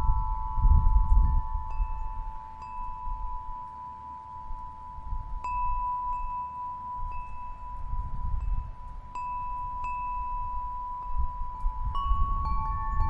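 Wind chimes ringing with scattered single notes over a steady held drone tone, with a low rumble that swells and fades, like wind.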